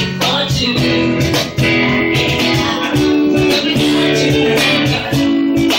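Live band playing a pop song: strummed guitar chords over sustained keyboard chords, in a steady rhythm, with no clear lead vocal.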